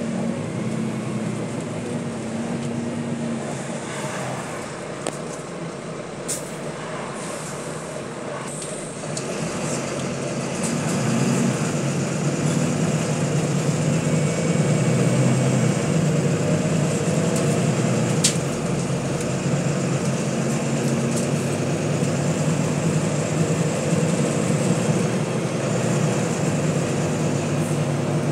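Volvo B9TL double-decker bus's diesel engine and drivetrain droning steadily over road noise, heard from inside the passenger cabin while the bus is under way. The drone grows louder about ten seconds in and stays so, with a couple of short sharp clicks or rattles along the way.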